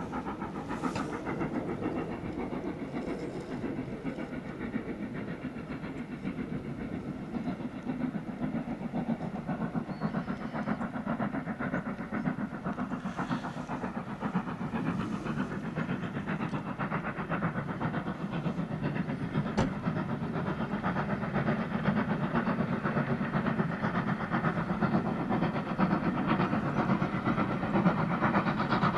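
Steam locomotive working hard as it hauls a passenger train, its exhaust beats and the train's running noise growing louder as it comes closer.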